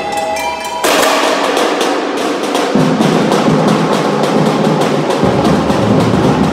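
University samba bateria (samba drum corps) playing. Briefly only a few bell-like ringing tones, then just under a second in the full battery comes in suddenly with snare drums and other percussion, and the low surdo bass drums join about three seconds in.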